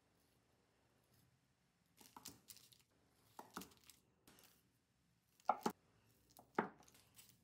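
Knife chopping on a cutting board: about six separate cuts spaced roughly a second apart, the two loudest in the second half.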